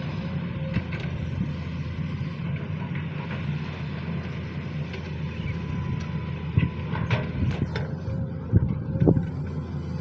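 SANY SY215C hydraulic excavator's diesel engine running steadily, with scattered knocks and clunks that come more often in the last few seconds.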